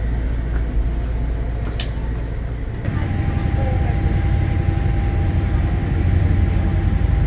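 Passenger ferry's engines rumbling steadily, heard aboard, with a sharp click a little under two seconds in. The rumble shifts abruptly to a different, higher hum with a faint steady whine about three seconds in.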